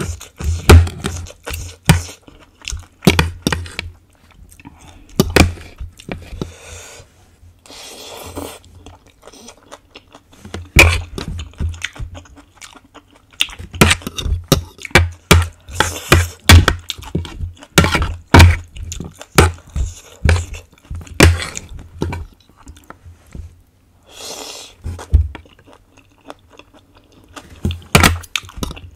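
Close-up eating sounds: pork ribs being chewed and crunched, mixed with sharp clicks and scrapes of a fork and spoon against the plate.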